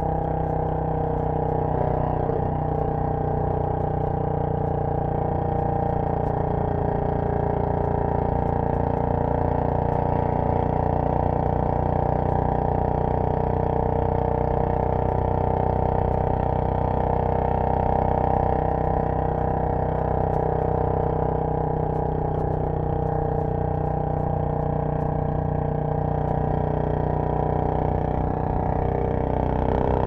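Royal Enfield Bullet 500's air-cooled single-cylinder engine running steadily at cruising speed, its exhaust note coming through a Punjab Long Bottle silencer, heard from the rider's seat.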